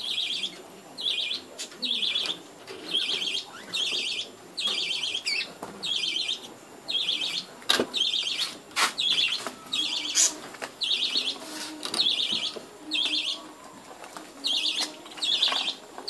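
A cuttlebone rubbed back and forth against wire mesh: a short scratchy rasp that repeats evenly a little more than once a second, pausing briefly near the end. A few sharp clicks come about halfway through.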